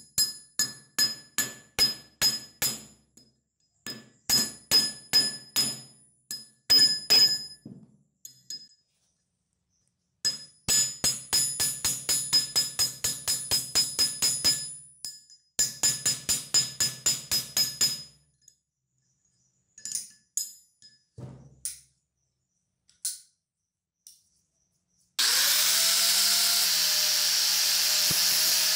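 Hammer striking steel pliers on a steel anvil block in quick runs of ringing metal blows, with pauses between the runs. Near the end an angle grinder spins up and runs steadily, grinding the pliers' jaw.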